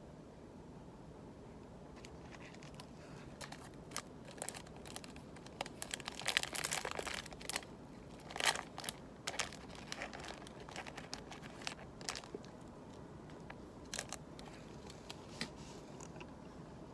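Small plastic wrapper of a Choco Heim chocolate wafer snack being crinkled and torn open by hand. It is an intermittent run of crackles and rustles, loudest partway through, then thinning out.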